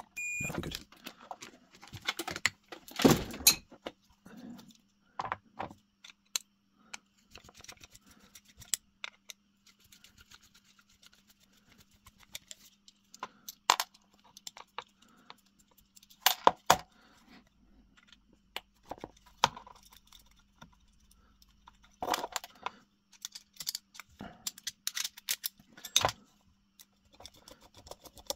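Small clicks, knocks and metallic clinks from a UK three-pin mains plug being handled and dismantled with a screwdriver: plastic plug body, brass screws and terminals. A short beep about half a second in is the multimeter's continuity tester showing the plug's fuse is not blown.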